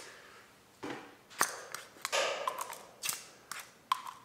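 Piston being pushed by hand through the cylinder of a Wells PDW ARP gel blaster, giving several short puffs of air from the nozzle with light plastic clicks. The puffs show that the cylinder now builds air pressure, with the piston head and nozzle refitted at the correct end.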